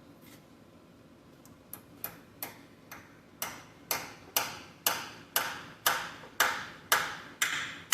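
Hammer tapping on steel, about two blows a second, starting light and getting steadily harder, each blow ringing briefly.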